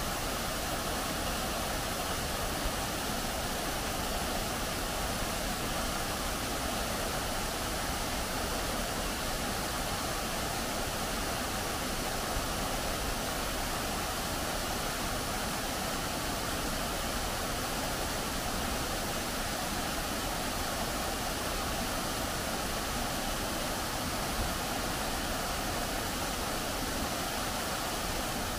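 Revson Fountain's water jets splashing down into their basin: a steady rush of falling water.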